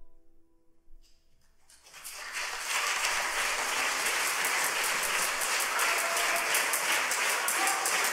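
The orchestra's last held note dies away. From about two seconds in, audience applause starts and builds quickly to steady, dense clapping.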